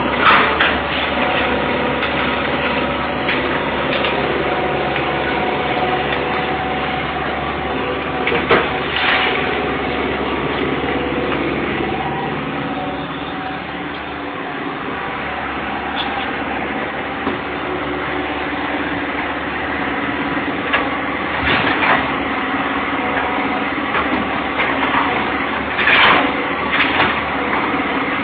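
John Deere excavator's diesel engine running at a steady note while it works through demolition debris, with crashes of wood and debris several times: right at the start, about a third of the way in, and twice in the last third.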